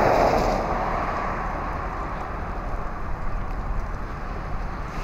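Rushing noise of a passing vehicle, loudest at the start and slowly fading away.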